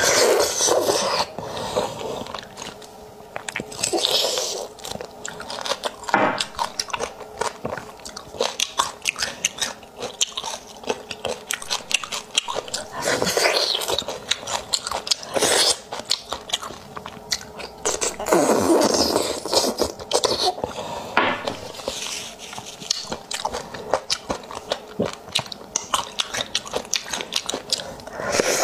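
Close-miked eating of spicy pig's bone marrow: a dense run of wet mouth clicks, smacks and chewing, with several louder, longer stretches of sucking and biting noise.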